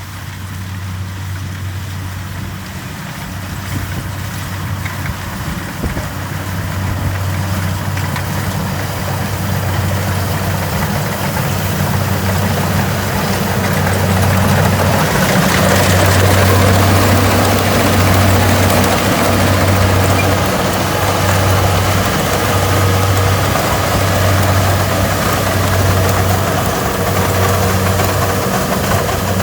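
Kubota DC70 Plus combine harvester's diesel engine running steadily with a low drone, growing louder around the middle as a broader rushing noise joins in.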